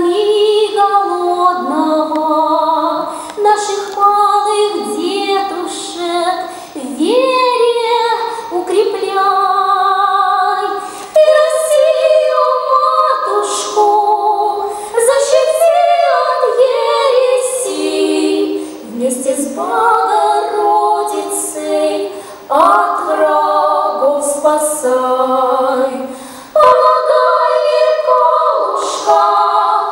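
A woman's voice singing unaccompanied in held notes, with a girls' choir singing together by the end.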